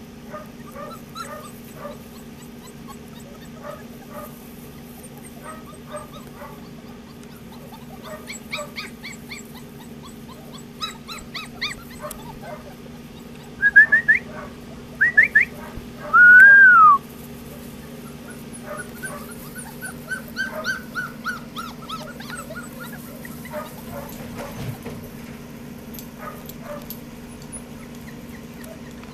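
Gordon Setter puppies whimpering and squeaking, with many short high cries throughout. About 13 seconds in come several loud yelps and a sharp whine that rises and then falls, and a few seconds later a longer drawn-out whine.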